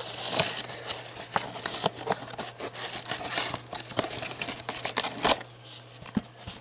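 A cardboard D&D Miniatures booster box being torn open by hand, its packaging crinkling and crackling with many sharp tearing clicks. The noise dies down about five seconds in, leaving a few scattered clicks.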